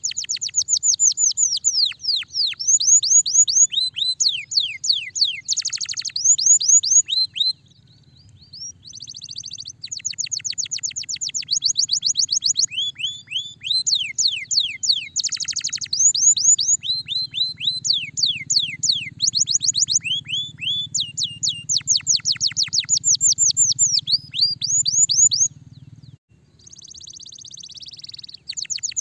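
Domestic canary singing: long fast trills of rapidly repeated high notes that sweep downward, one phrase after another with short breaks between them.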